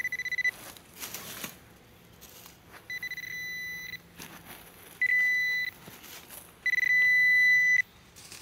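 Handheld metal-detecting pinpointer giving steady high-pitched beeps, which signal metal in the soil at the dig hole. One tone ends just after the start, then three more follow, the last the longest and loudest. A short scrape of soil comes about a second in.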